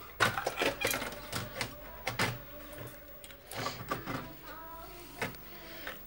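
Irregular clicks, knocks and clatter of a circuit board being handled and fitted back into a UPS casing.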